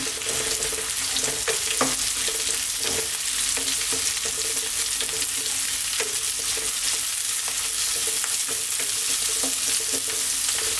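Sliced onions, garlic and chilies sizzling in hot oil in a nonstick wok, sautéed as the base of the dish. A spatula stirs them, scraping and tapping against the pan now and then.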